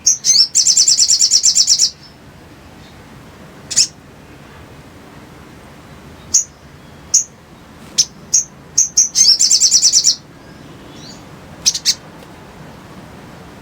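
Little spiderhunter (sogok ontong) calling: sharp, high single chips scattered throughout, and two fast, even trilled runs of about a second each, one near the start and one about two-thirds of the way in.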